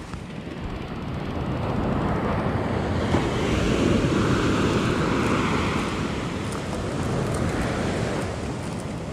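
Ocean surf breaking and washing up a sand beach, swelling to a peak about four seconds in and then easing off, with a smaller surge near the end. Wind buffets the microphone underneath.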